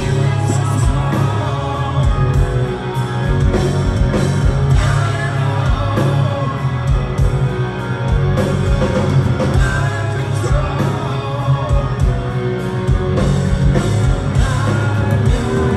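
Live rock band playing: electric guitars, bass and drums with a male voice singing over them, heard loud from within the audience.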